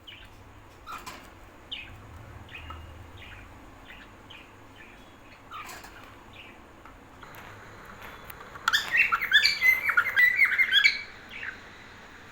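Small pet parrots chirping. There are scattered single chirps at first, then a loud burst of rapid chirping lasting about two seconds near the end.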